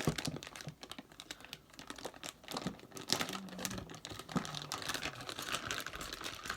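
Packaging and items being handled: irregular clicks, taps and rustles.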